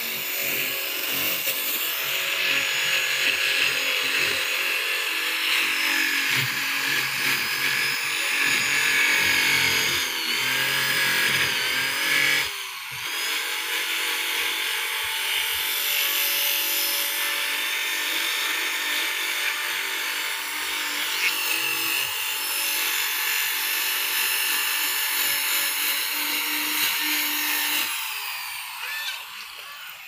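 A small electric motor, as in a power tool, running steadily with a constant whine and hiss, dipping briefly about twelve seconds in and fading out near the end.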